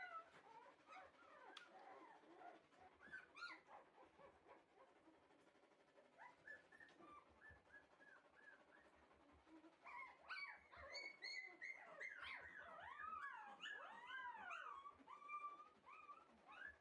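Shiba Inu puppies whining and whimpering in high, arching cries. The cries are sparse at first, then come thick and overlapping over the last third. A few faint knocks can be heard along with them.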